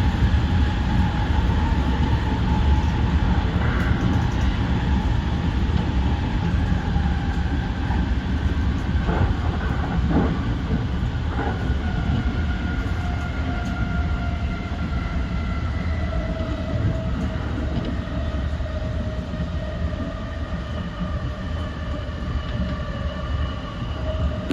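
E235-1000 series electric train running: a steady low rumble of wheels on rail, with the traction motors' whine falling slowly in pitch as the train slows. A few short knocks from the track about nine to eleven seconds in.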